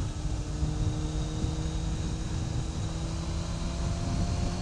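Yamaha YZF600R's inline-four engine running at steady low revs under way, with low wind and road rumble.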